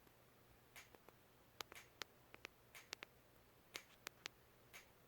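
Near silence with about a dozen faint, sharp little clicks at irregular intervals.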